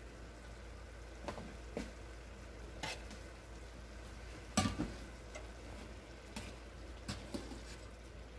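A utensil stirring potatoes into sausage and sofrito in a frying pan: a faint steady sizzle with scattered clicks and knocks of the utensil against the pan, the loudest about halfway through.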